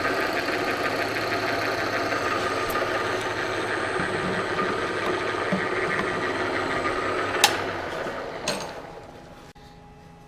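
Electric machine tool running steadily while cutting a small slot into a piece of wood. About seven and a half seconds in there is a sharp click, another a second later, and then the machine winds down and falls quiet.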